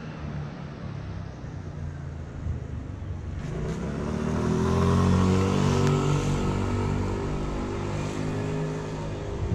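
A car engine running close by on the street, with a low steady hum that rises in pitch and grows louder about halfway through, then holds.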